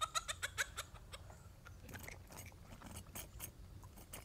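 A quick run of faint clicks and taps, about eight a second, thinning out to scattered ticks after the first second.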